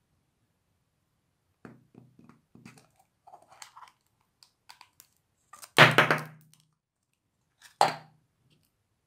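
Hard plastic surprise egg being handled and opened: a run of small clicks and knocks, a louder plastic clatter about six seconds in, and another sharp knock near eight seconds.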